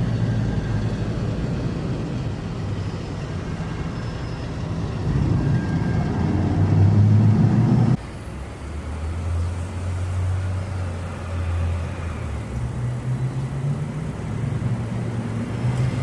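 Low vehicle rumble that builds up and stops abruptly about halfway through. A different, lower hum follows, and the rumble grows again near the end.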